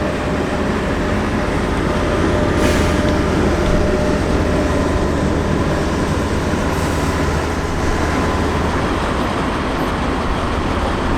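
M3 amphibious bridging vehicle's diesel engine running steadily, a loud continuous mechanical noise with a faint steady whine.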